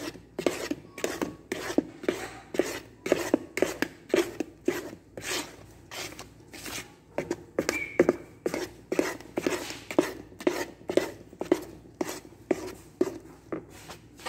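Wooden spoon stirring thick cake batter in a bowl, rhythmic scraping and knocking strokes about two to three a second, as flour is worked into the butter-and-egg mixture by hand.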